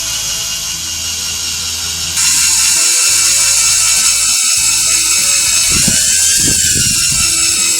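Foster FSD-010 350 W corded drill running, drilling into a piece of aluminium, with a steady high motor whine that steps up louder about two seconds in.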